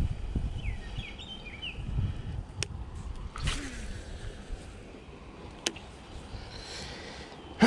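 A few short bird chirps in the first two seconds over a low rumble, then two sharp clicks about three seconds apart with a brief rustle between them.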